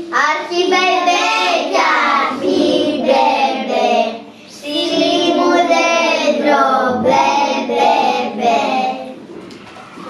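Children singing a Greek Christmas carol (kalanta), in three sung phrases with short breaks about two and a half and four and a half seconds in.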